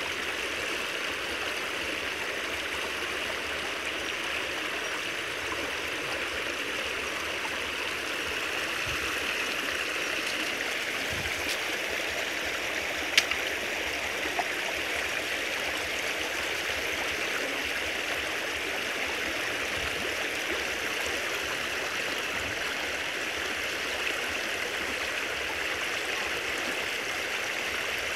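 Creek water rushing and splashing in a steady flow through a narrow channel past a bamboo cage fish trap. A single sharp click stands out about halfway through.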